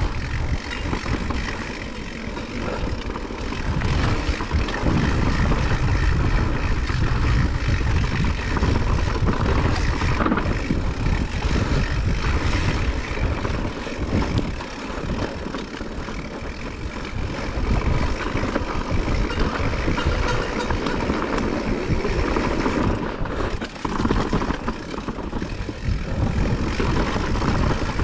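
Blizzard wind blowing hard against the microphone, a loud rushing noise with a deep rumble that swells and eases in gusts.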